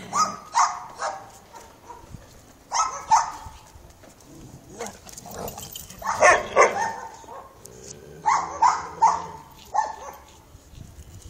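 Dog barking in short groups of two to four barks while playing with another dog, with quieter gaps between the groups; the loudest barks come a little past the middle.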